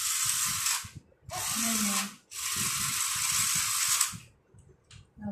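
Battery-powered toy metro train's small electric motor and plastic gears whirring in three bursts, the longest nearly two seconds, stopping about four seconds in.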